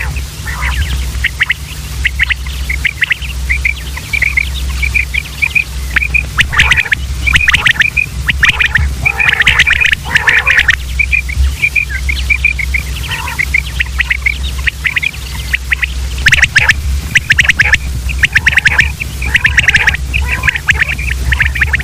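Common quail calling, many short sharp notes in quick clusters, several birds overlapping, over a steady low hum.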